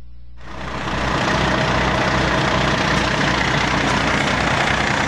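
Fire apparatus's heavy diesel engine running steadily on the fireground, with a loud steady rushing hiss over it. It cuts in sharply about half a second in.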